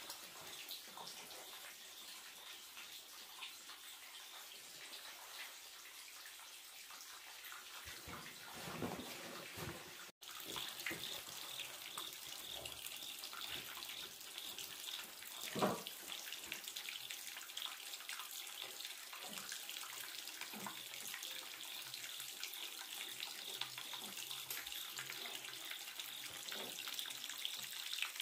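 Running water, a steady faint splashing hiss with scattered light knocks and splashes; it breaks off for an instant about ten seconds in.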